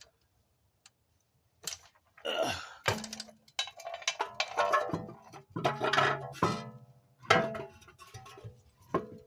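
A car road wheel being picked up and handled against the hub and ground, making a string of metallic clanks and knocks, several of them ringing on briefly. The knocks begin about two seconds in.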